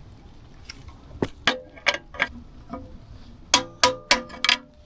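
Hammer blows on metal, knocking a heated bearing out of a motorcycle frame: about ten sharp metallic strikes at an uneven pace, each ringing briefly.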